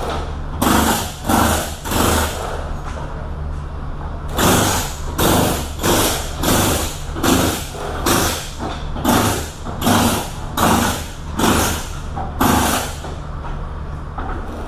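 A steady low engine hum, with a rhythmic run of loud, noisy strokes over it, about one and a half a second. The strokes come in a short burst at first, pause for a couple of seconds, then go on evenly for about eight seconds.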